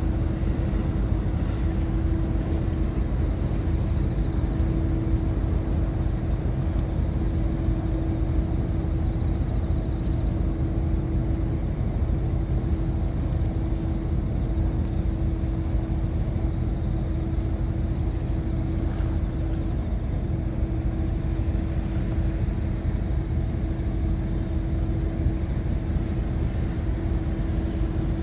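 Hayabusa-class missile boat running at speed, heard across the water: its gas-turbine propulsion makes a steady low rumble with a constant hum that does not change.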